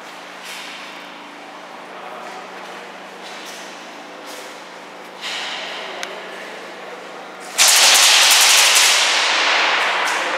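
Airsoft guns firing: a few short bursts, then a loud rapid burst about three-quarters of the way in that tails off gradually.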